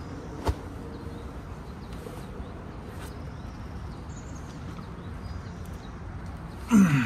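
A boulderer's short grunt of effort near the end, loud and falling in pitch, as he makes a hard reach on the boulder problem. Before it, a few soft taps of hands and climbing shoes on the rock over a steady background hiss.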